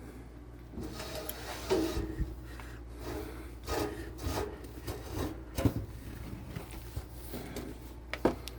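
Furnace filter being handled, its frame rubbing and scraping irregularly, with a few light knocks.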